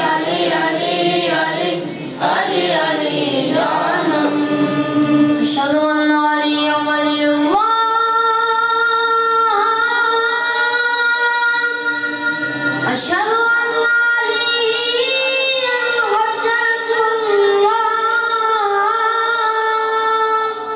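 A boys' choir singing a devotional song unaccompanied, several young voices together. The melody moves quickly for the first few seconds, then settles into long held notes.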